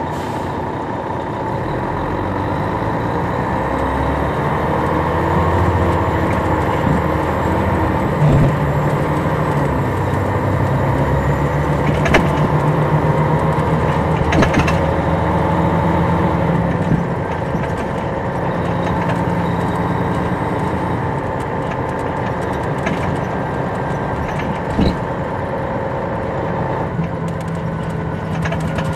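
Detroit Diesel Series 60 diesel engine of a 2002 MCI D4000 coach, heard from the back of the bus while driving. The engine note rises and shifts as it pulls, then holds and drops back about two-thirds of the way in. A few sharp knocks are heard along the way.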